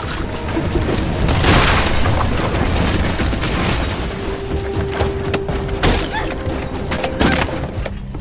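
Fantasy-film battle soundtrack: heavy booms, crashes and impacts over dramatic score music, the biggest crash about a second and a half in.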